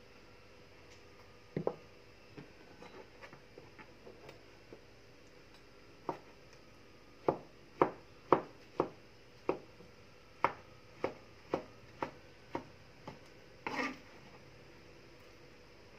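Kitchen knife slicing ripe mango on a cutting board, the blade knocking the board with each cut, about two cuts a second from about six seconds in, after a few lighter taps.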